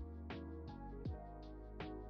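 Background music with a beat: deep kick drums that drop in pitch, a sustained bass and short hi-hat ticks.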